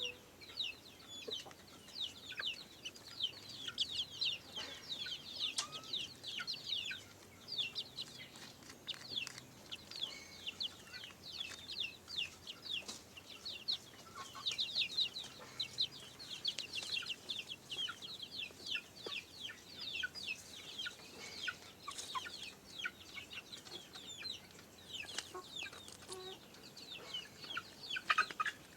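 Kampung chickens calling without a break, a dense overlapping run of short, high-pitched peeps.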